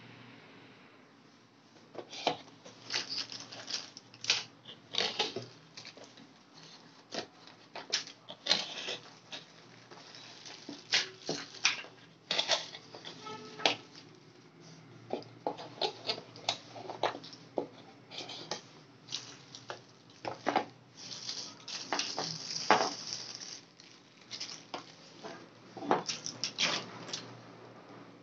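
Plastic packaging bags crinkling and rustling in irregular crackly bursts as they are handled, along with cardboard box parts, starting about two seconds in.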